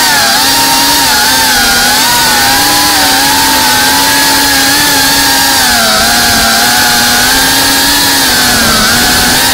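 Geprc Cinelog 35 FPV drone's brushless motors and propellers whining steadily in flight, the pitch wavering gently up and down with the throttle, over a steady hiss.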